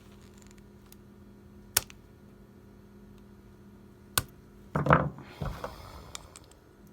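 Small plastic and metal parts of a die-cast toy car being handled and pressed together: a sharp click a little under two seconds in, another about four seconds in, then a short burst of scraping and clattering as the body is pushed onto the base.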